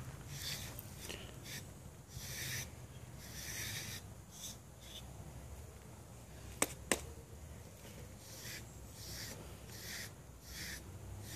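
Deshedding blade rasping through a dog's coat in repeated short brushing strokes, a pause near the middle broken by two sharp clicks in quick succession.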